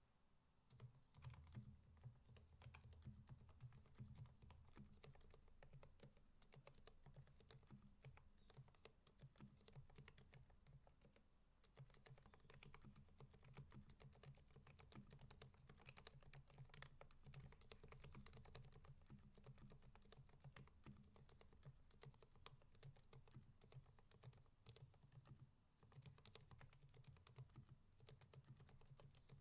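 Continuous typing on a Keychron V5 mechanical keyboard with Kailh Fried Egg silent switches: a steady stream of soft, very quiet keystrokes.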